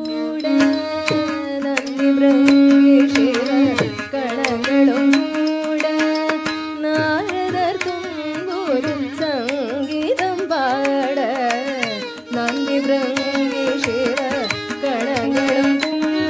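Carnatic vocal music in raga Surati set to Adi tala: a singer's ornamented, sliding melody over a steady rhythm of drum strokes.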